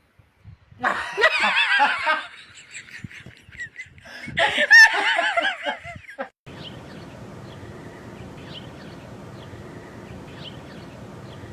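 A person laughing hard in two high-pitched bouts, each a quick run of rising-and-falling 'ha' sounds. About six and a half seconds in, it gives way abruptly to a steady low hiss with faint, scattered chirps.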